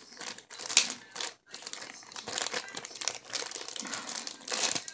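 Packaging crinkling as it is handled, in irregular crackles.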